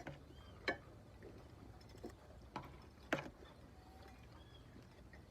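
Eating sounds at a shared meal: a few sharp clicks and taps, four in all, over a quiet background.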